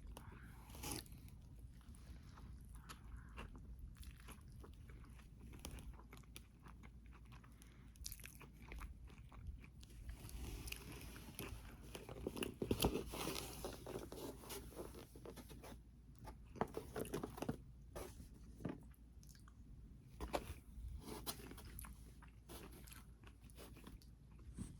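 Close-miked chewing and crunching of food, a person eating. The crunchy bites come thickest and loudest about halfway through, with another run a little later.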